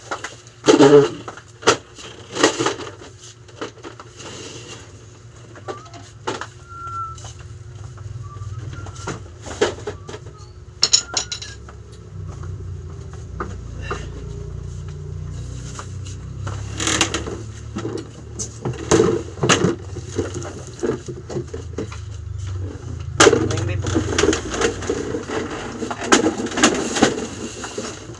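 Scattered knocks and clatter of things being handled and shifted around, over a low rumble that swells in the middle and fades again.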